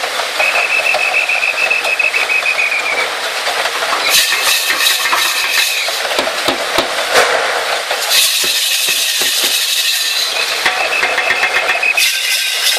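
Animal-driven Persian wheel (rehat) turning: a continuous rattling clatter of its gearing with many sharp clicks, and a high steady tone that comes and goes several times.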